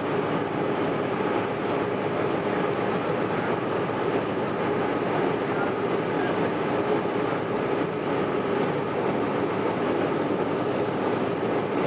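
Aircraft engines and rushing air heard from inside the passenger cabin in flight: a steady, unbroken drone with a constant hum.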